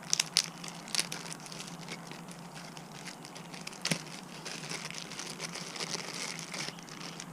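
Plastic packaging crinkling as a small tool is unwrapped, with a few sharp clicks in the first second and one about four seconds in.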